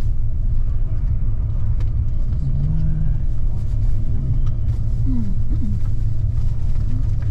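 Steady low rumble of a double-decker coach's engine and tyres at road speed, heard from inside the passenger cabin.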